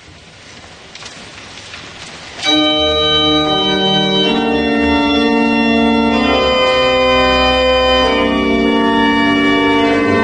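Church pipe organ playing full sustained chords. After a quieter stretch it comes in suddenly and loudly about two and a half seconds in, then moves to a new chord every two seconds or so.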